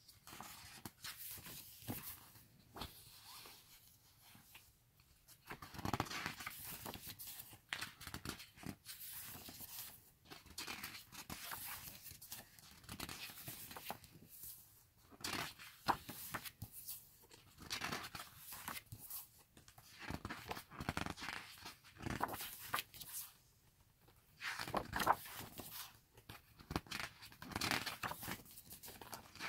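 Pages of a large paper photo book being turned and handled: repeated paper rustles and flaps at an uneven pace, with short pauses between turns.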